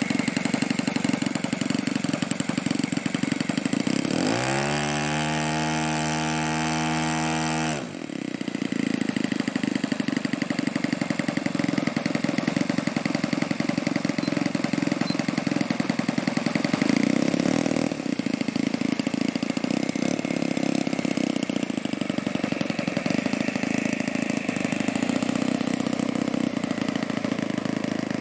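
Saito 80 four-stroke glow engine and propeller of a radio-control model warbird idling with a fast, even beat. About four seconds in it is run up to full throttle: a smooth, high, steady note for about four seconds. It then drops sharply back to idle and keeps running.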